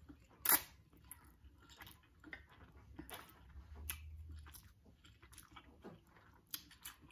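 A person eats instant fire noodles: a short loud slurp of noodles about half a second in, then quiet wet chewing and mouth clicks.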